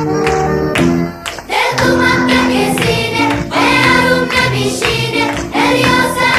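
Background music: instrumental notes for about the first second and a half, then a choir singing a melody.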